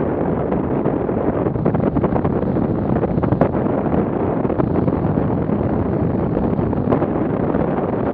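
Wind rushing over the microphone of a camera mounted on a hang glider in flight: a loud, steady rush with faint flutter.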